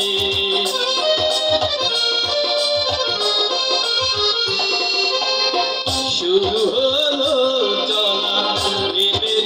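Live band playing an instrumental passage through the stage sound system: a sustained keyboard melody in held notes over a steady drum beat.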